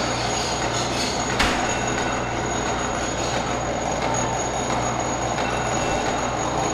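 Red plastic uncapping fork scraping wax cappings off a honeycomb frame: a steady, scratchy noise, with a single sharp click about a second and a half in.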